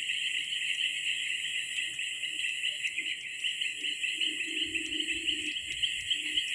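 Steady, high, pulsing chorus of insects such as crickets chirring in the swamp vegetation, with a faint low drone joining in about four seconds in.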